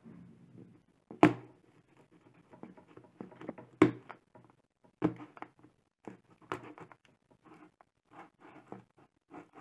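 A small knife blade and fingernail cutting and picking at the clear packing-tape seal on a cardboard box: scattered scratching and scraping of tape and card, with sharp taps against the box about a second in, near four seconds, at about five seconds and again at about six and a half seconds.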